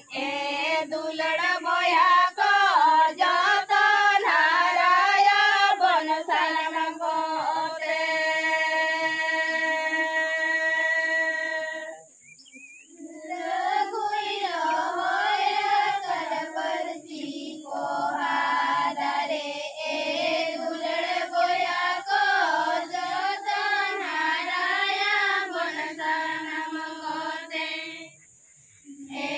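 A group of Santal women and girls singing a Santali song about the Ol Chiki script together, unaccompanied. They hold one long note about a third of the way in, break briefly after it, and pause again near the end.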